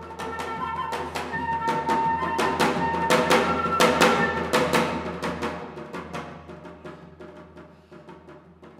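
Live flute and janggu music: rapid strokes on the janggu hourglass drum under held flute notes, building to a loud peak about four seconds in and then dying away.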